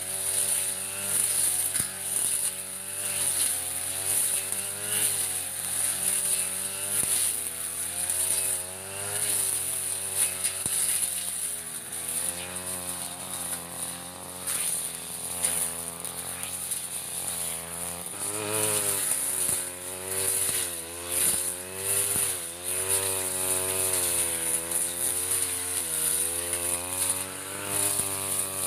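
Backpack brush cutter's small engine running under load as it cuts thick grass, its pitch rising and falling every second or two with each sweep of the cutting head.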